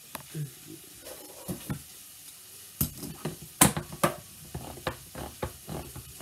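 Handheld manual can opener being fitted onto a can of coconut milk with a few soft knocks, then cranked around the rim, cutting the lid with a rapid series of sharp clicks, about four a second, from about three seconds in.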